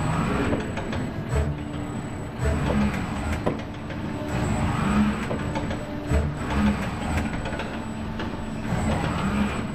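ABB industrial robot arm's joint servo motors whirring as the arm swings across the work cell and works over the canvas, over a steady low hum, with a few light clicks.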